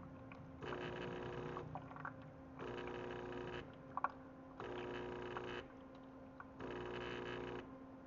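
Automatic espresso machine's pump buzzing in one-second pulses, on and off about every two seconds, as the machine runs its brewer deep-clean cycle. A low steady hum runs underneath, and there is a sharp click about four seconds in.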